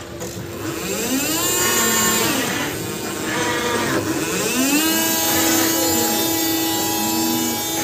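Electric motors of a BT Reflex reach truck whining as it manoeuvres. The pitch rises and falls twice, then holds steady from about five seconds in.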